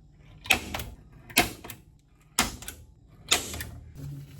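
Hammer striking a centre punch on the metal mounting plate, four sharp blows about a second apart, each ringing briefly: marking the hole positions before drilling.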